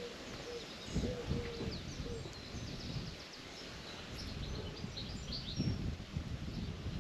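Countryside birdsong: a few low, hooting coos in the first two seconds, then high chirps from small birds, over an irregular low rumble.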